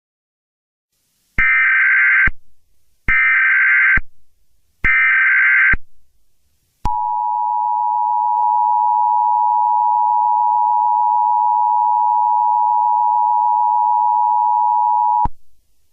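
Emergency Alert System SAME header: three bursts of high data tones, each just under a second long, then the two-tone EAS attention signal, a steady tone held for about eight seconds that cuts off just before the end.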